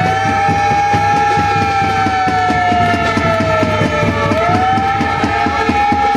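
A loud siren wail that rises quickly and then falls slowly, repeating about every four seconds, over a fast, steady rhythmic pulsing.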